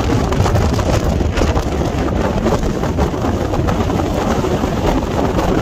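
Hurricane-force wind blowing across the microphone: a loud, steady rumbling rush that flutters without a break.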